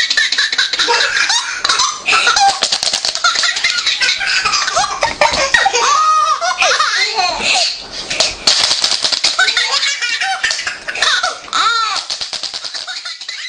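A baby laughing: repeated bursts of giggles and belly laughs, trailing off near the end.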